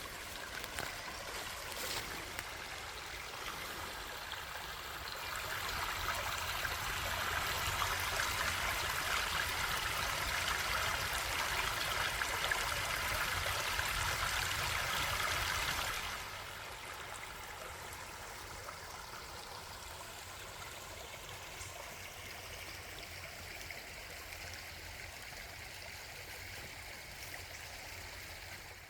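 A small stream rushing over a little waterfall, a steady splashing wash of water. It swells a few seconds in, then drops suddenly to a quieter steady run about halfway through.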